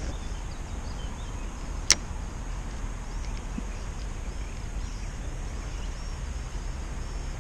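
Steady low wind rumble on the microphone, with faint distant bird chirps and a single sharp click about two seconds in.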